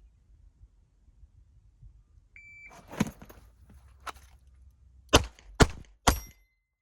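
A shot timer beeps once, followed by a thump and clothing noise as the pistol is drawn one-handed from deep concealment, then three pistol shots about half a second apart.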